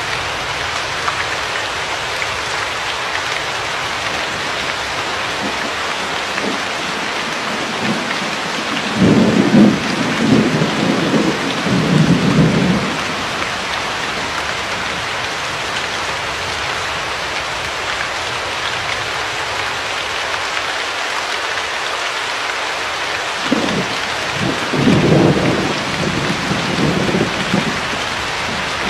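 Steady rain hiss with two low rolls of thunder, one about a third of the way in and another near the end, each lasting a few seconds.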